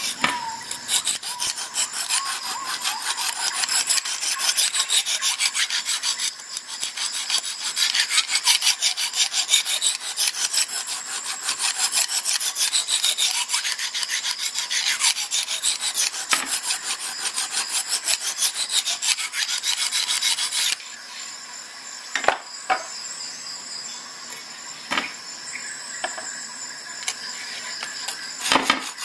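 Lansky Deluxe sharpening hone, a stone on a guide rod, stroked rapidly back and forth across a clamped steel knife edge, making a dense, steady rasping. About twenty seconds in the stroking stops abruptly, leaving only a few single scrapes, then it resumes near the end.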